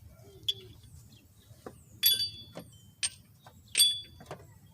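Metal tools and parts being handled on a suspension job: about six separate metallic clinks and knocks, several with a short ringing tone.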